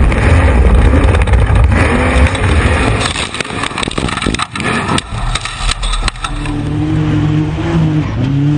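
Off-road vehicle engine running hard, with a stretch of sharp knocks and clatter in the middle, then the engine held at a steady pitch that wavers near the end.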